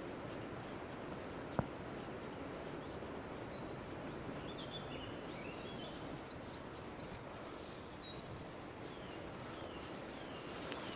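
Songbirds singing rapid, high trills and chirps over the steady rush of a river in flood, with a single sharp click about one and a half seconds in.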